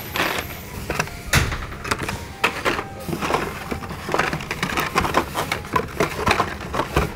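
Packaged Hot Wheels die-cast cars in plastic blister packs being handled and sorted: a dense, irregular run of clicks and rattles.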